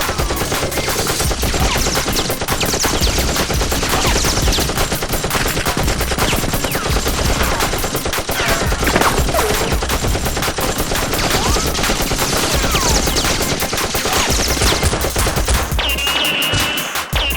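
Rapid automatic-gunfire sound effects, many shots a second with hardly a break, over background music. Near the end a high steady tone comes in.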